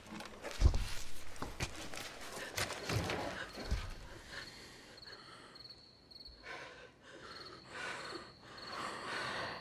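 Quiet, tense film sound effects: soft shuffling movement and scattered small clicks and knocks, with a faint, high, rapidly pulsing chirp from about four and a half seconds in.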